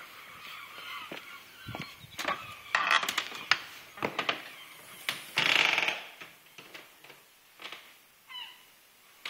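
Front door being opened and closed: handle, latch and lock clicks and knocks, with a short burst of noise, the loudest sound, about five and a half seconds in.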